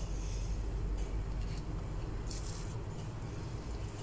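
Soft rustling of hands handling a blanched cabbage leaf and rice stuffing, heard twice briefly (at the start and about two seconds in), over a steady low background hum.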